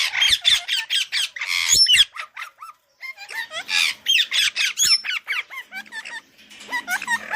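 Budgerigar chirping and warbling: quick runs of short chirps gliding up and down in pitch, with a brief pause about three seconds in.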